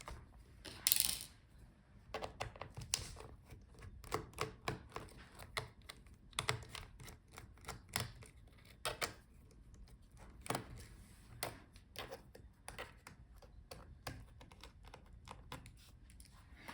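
Small T4 Torx screwdriver taking the bottom-case screws out of a Dell XPS 13 laptop: irregular light clicks and ticks of the bit and screws, with a louder click about a second in.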